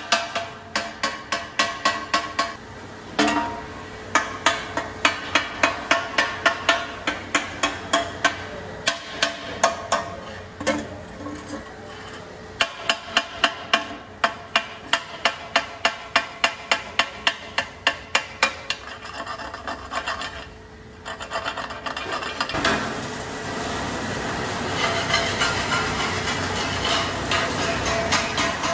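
Small hammer striking a painted sheet-steel tractor seat frame: quick runs of sharp metal-on-metal blows, about three a second, with short pauses between runs. Near the end the blows stop and a steady noise takes over.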